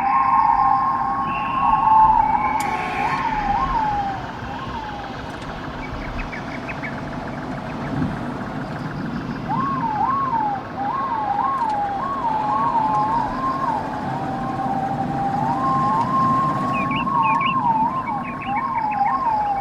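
Siren-like tone warbling rapidly up and down over a steady low rumble. It breaks off about four seconds in and starts again about halfway through.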